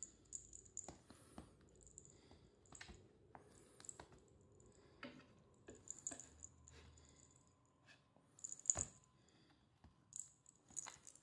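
Faint, irregular clicks and taps of a kitten's paws and claws on tatami mats as it bats at and grabs a feather teaser wand, with one louder tap about nine seconds in.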